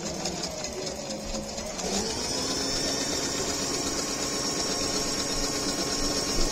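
Electric household sewing machine stitching fabric. The motor runs slower at first, speeds up about two seconds in, then runs steadily at that higher speed.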